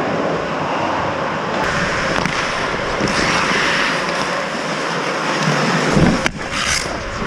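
Ice hockey play: steady scraping and hissing of skates on the ice, with a few sharp knocks of sticks or puck about six to seven seconds in.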